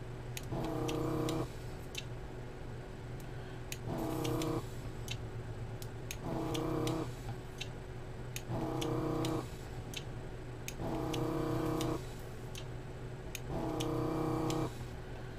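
Desoldering gun's vacuum pump switching on in short bursts of about a second, six times, to suck melted solder from a chip's pins. The bursts sit over a steady low hum, with sharp clicks scattered between them.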